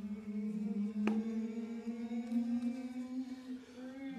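Voices holding a low chanted hum on one sustained note that creeps slightly up in pitch, with a faint click about a second in.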